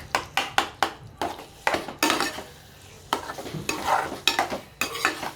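A spoon stirring a thick mash of roasted eggplant and vegetables in a pan, scraping and knocking against the metal in irregular strokes.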